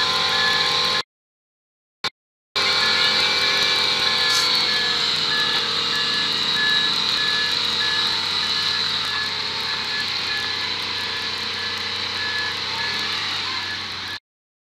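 Heavy military 8x8 tractor truck's diesel engine running steadily under load as it pulls through deep mud. The sound cuts out for about a second and a half about a second in.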